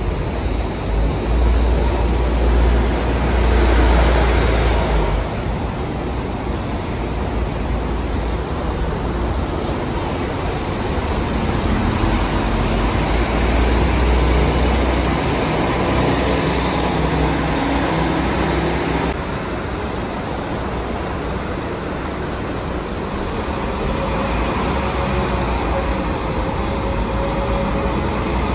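City buses driving through a covered concrete bus interchange, their engines a deep rumble that swells twice as buses pull past, over steady traffic noise.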